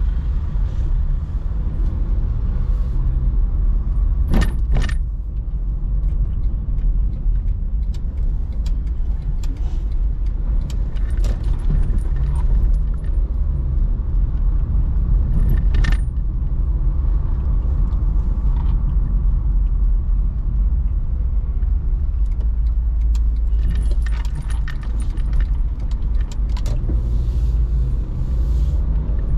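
A car driving: a steady low rumble of engine and road noise, with scattered light clicks and rattles, a pair about four seconds in and a sharper one about sixteen seconds in.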